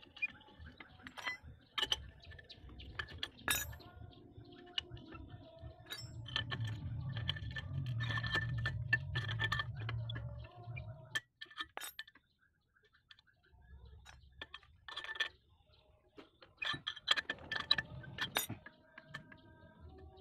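Scattered metallic clicks and clinks of a screwdriver, screws and metal parts as the muffler is fitted back onto a brush cutter engine, over a low background hum that swells in the middle, drops out briefly and returns.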